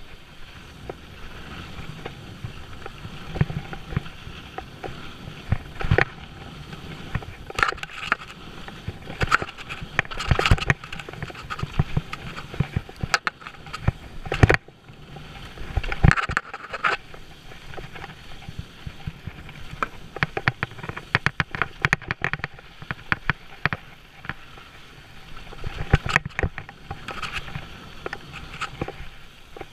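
Mountain bike ridden fast down a dry dirt trail: steady rumble of tyres on dirt and gravel, with frequent sharp knocks and rattles as the bike hits bumps and jumps.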